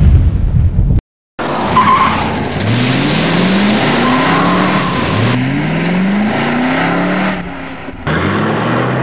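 A loud low rumble cuts off about a second in. After a short silence, a car engine accelerates hard, its pitch climbing and dropping back about four times as it shifts up through the gears, with a brief tire squeal near the start.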